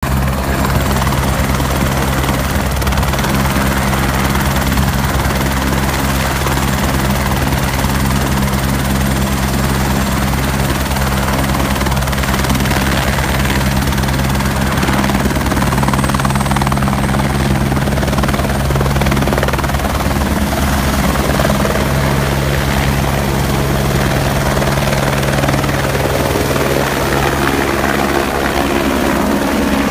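Air ambulance turbine helicopter running on the ground at flight rotor speed: a steady rotor chop under a turbine whine. Near the end it lifts off, and the pitch of the rotor sound shifts slightly.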